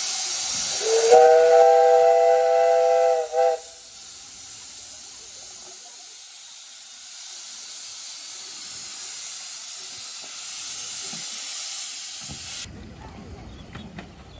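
15-inch-gauge steam locomotive starting away: a steady loud hiss of escaping steam, with one whistle blast near the start, three notes sounding together for about two and a half seconds. The hiss cuts off suddenly near the end.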